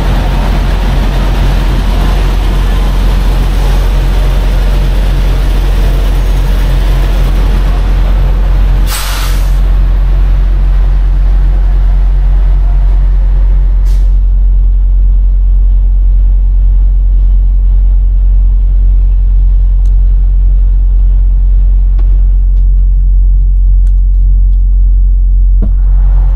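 Semi-truck diesel engine idling steadily, a deep even hum. About nine seconds in there is a short hiss, after which the higher outdoor noise drops away and only the engine hum remains, heard from inside the cab.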